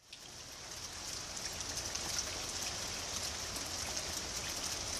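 Steady rain falling, an even hiss with many small drop ticks, fading in over about the first second.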